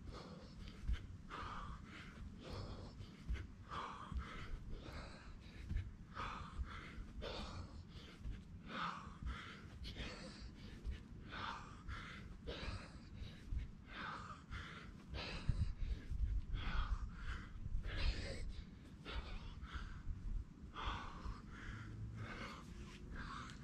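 A man breathing hard with exertion, a heavy gasping breath about once a second, with low thuds and rumble underneath.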